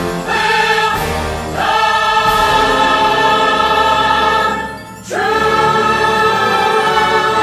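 Fireworks-show soundtrack music: a choir with orchestra holding long, sustained chords. The music drops briefly about four and a half seconds in, then swells back on a new chord.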